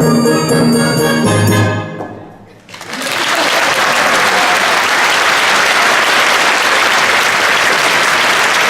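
The accompaniment's closing chords end the number and die away, then audience applause breaks out about three seconds in and carries on steadily.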